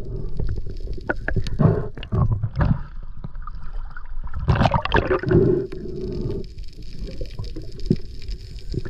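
Muffled water sounds picked up by a camera underwater and at the surface: gurgling and sloshing that come in irregular surges.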